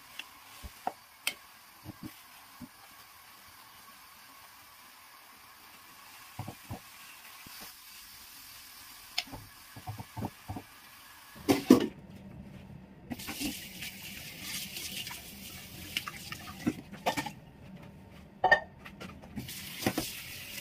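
Fennel blanching in a pan of boiling water: a faint steady hiss with a few sharp taps of a wooden spoon against the pan. A little past halfway, tap water starts running onto the blanched fennel in a stainless steel colander in a sink, with knocks as hands toss the greens.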